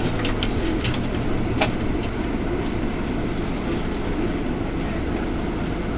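Scania CN280UB city bus under way, heard from inside the passenger cabin: a steady engine and road rumble with a few sharp rattling clicks in the first two seconds.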